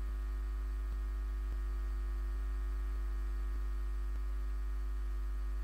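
Steady electrical mains hum on the recording, low and unchanging, with fainter steady tones above it.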